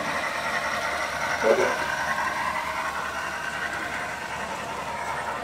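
HO scale model train running along the layout track, a steady rolling hum, with a brief louder sound about one and a half seconds in.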